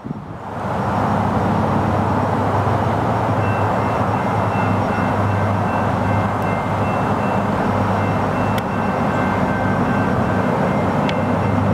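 EMD GP38-2 diesel-electric locomotive's 16-cylinder two-stroke engine working hard under load as it climbs a grade, a steady low drone that comes in suddenly and then holds level. A faint high ringing tone joins about three seconds in, with a few sharp ticks later on.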